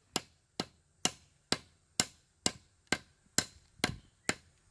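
Hammer blows driving a glued wedge into the slot in the top of an axe handle: about ten even strikes, roughly two a second. The wedge spreads the top of the handle to lock it inside the axe head.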